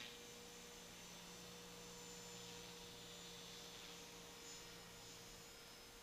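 Faint, steady whine of a T-Rex 450 clone electric RC helicopter flying high overhead. It swells a little right at the start and again about four seconds in.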